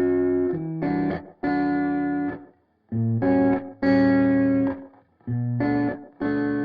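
Background music: an instrumental passage without vocals, chords played in separate stabs with short silences between them.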